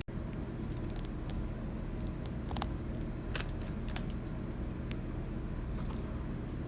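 Steady low rumble with a few faint clicks scattered through it.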